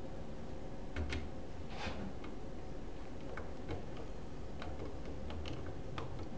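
Irregular small clicks and taps of a screwdriver turning a ground screw into a junction box, tightening a ground pigtail under it.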